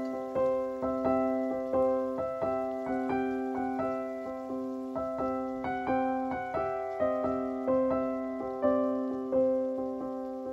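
Background piano music: a gentle melody of struck, ringing notes, about two a second.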